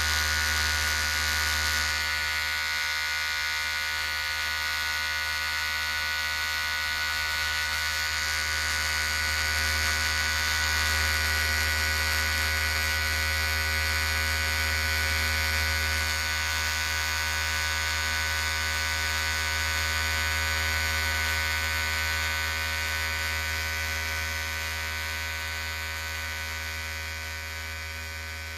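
Electric hair clippers running with a steady buzz, growing quieter over the last few seconds.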